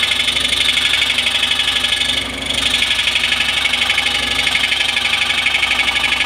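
Scroll saw running, its reciprocating blade cutting slowly into a wooden board with a steady, fast buzz of strokes; the cutting sound briefly eases about two seconds in.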